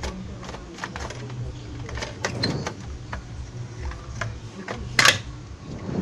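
Plastic clicks and knocks from an HP LaserJet P3015's chassis as a plastic part along its bottom is worked loose with a screwdriver and pulled off, with one loud clack about five seconds in.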